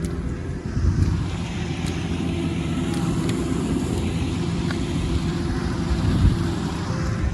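An engine running steadily at a constant speed, a low hum with a noisy wash over it.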